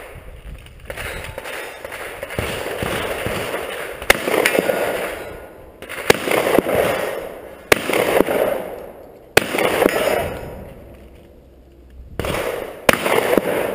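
Gunshots from a long gun, fired singly about one and a half to three seconds apart. About five shots in all, each followed by a long rolling echo.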